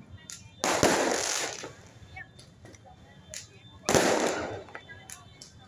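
Aerial firework shells bursting, two loud booms about three seconds apart, each dying away over about a second, with smaller pops and crackles in between.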